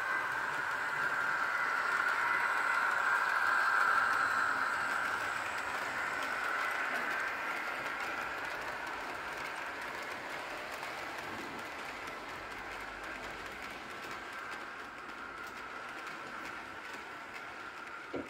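Märklin H0 Class 247 Vectron model diesel locomotive running on a model railway layout, pulling a train of tank wagons. The steady running noise is loudest a few seconds in and then slowly fades.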